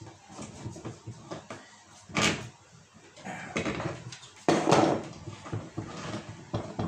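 A wrench working a brass bib tap loose and unscrewing it from its threaded fitting: a series of sudden metal knocks and clunks from the tool and the fitting. One sharp knock comes about two seconds in, and the loudest cluster comes around four and a half seconds.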